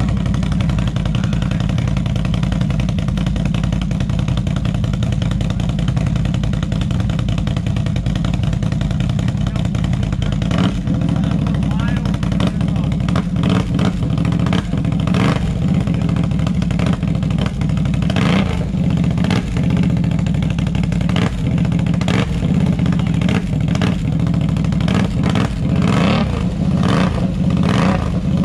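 Snorkeled big-bore ATV engine running loud and steady while driving through mud, with short knocks and clatters through the second half.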